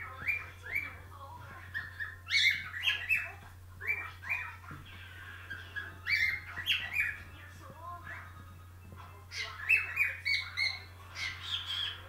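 Whiteface cockatiel singing: phrases of short chirping, whistled notes with brief pauses between them.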